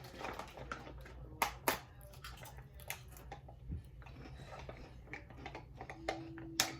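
Scattered sharp clicks and light knocks of things being handled on a kitchen counter, with two louder clicks in quick succession a little over a second in and another near the end. A low steady hum runs underneath, and a faint steady tone comes in near the end.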